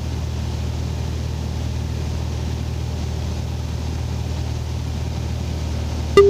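Mooney's piston engine and propeller droning steadily in the cockpit during the ILS approach. Just before the end, the outer marker beacon's tone starts beeping in short, evenly spaced dashes as the aircraft passes over it.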